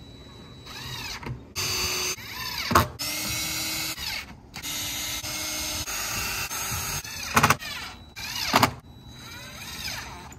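Cordless drill running into a thin plywood panel in several short runs of a second or two each, the motor spinning up and winding down each time. A few sharp clicks fall between the runs.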